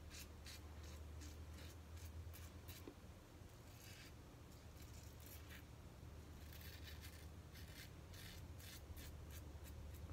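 Straight razor scraping through lathered stubble on the upper lip in many short, faint, scratchy strokes.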